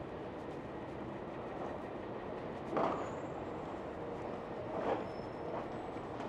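Steady rumble of city traffic, with two short louder sounds about three and five seconds in.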